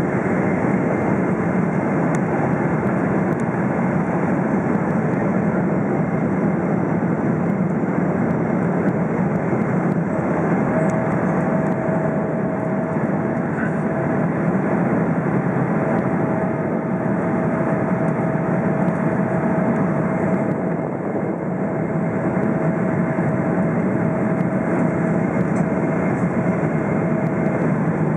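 Steady cabin noise inside a Boeing 777-300ER airliner descending on approach: the even rush of airflow and engine noise. A faint steady whine comes in about a third of the way through and fades out near the end.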